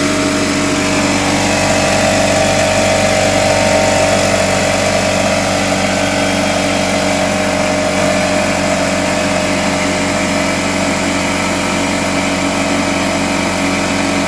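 Craftsman CMEC6150 6-gallon pancake air compressor running steadily, its oil-free pump building pressure in the tank.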